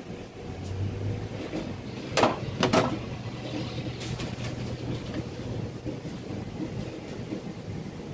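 Steady low kitchen hum and rumble, with two sharp clatters a little after two seconds in and a few lighter knocks as things on the counter are handled.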